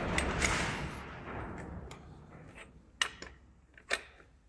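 Gloved hands fitting a two-jaw gear puller and a large adjustable wrench onto an engine's timing belt pulley: rustling handling noise with small metal clinks, then two short sharp metallic clicks about three and four seconds in.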